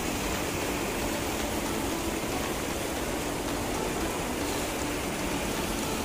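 Shallow rocky hill stream running over stones and small cascades: a steady rush of water.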